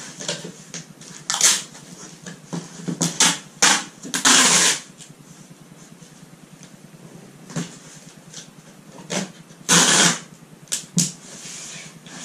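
A cardboard box being handled and taped with brown packing tape: a run of short, irregular scrapes and rustles, with two longer, louder noisy strips about four seconds in and near ten seconds.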